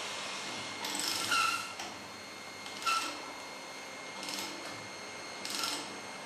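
A ratchet wrench is being cranked on a hand-operated mechanical tube puller, tightening the puller to draw the tube. There are four strokes about a second and a half apart, each a short burst of metallic ratcheting with a brief ring.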